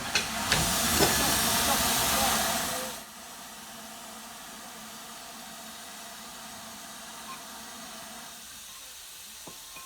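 Steam-locomotive sound from a model engine: a loud hiss of released steam, with a few clicks near the start, that cuts off about three seconds in and leaves a faint steady hiss.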